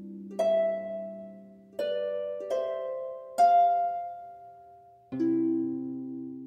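Slow, gentle instrumental music made of plucked-string notes and chords. About five are struck, each left to ring and fade.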